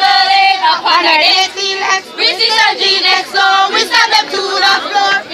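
A group of girls singing a cheerleading chant together, loud, opening on a long held note and going on in short quick phrases.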